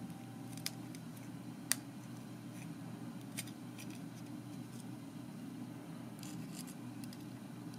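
A few small, sharp clicks of needle-nose pliers and a thin wire stabilizer working against a plastic laptop spacebar keycap as the wire is taken out. The sharpest click comes near two seconds in. A steady low hum runs underneath.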